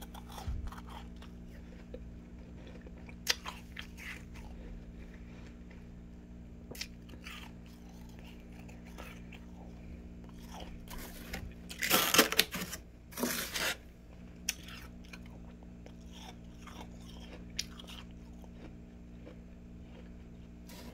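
A plastic spoon scraping and crunching thick frost inside a freezer, in scattered short scrapes, with two longer, loudest scrapes about twelve and thirteen seconds in. A steady low hum runs underneath.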